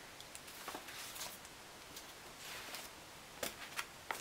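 Quiet handling sounds on a tabletop: soft rustles of paper and a book being moved, then a few light knocks late on as the book is set down.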